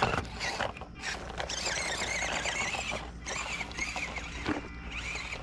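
Electric motor and gearbox of an RGT 136240 V2 1/24-scale RC rock crawler whining, the pitch wavering up and down with the throttle, over the tyres crunching on gravel and grass.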